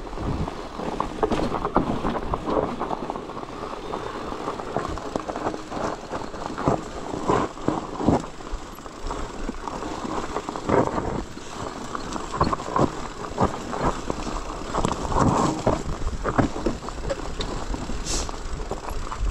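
Bicycle riding over a rough trail: a continuous rumble with many irregular knocks and rattles.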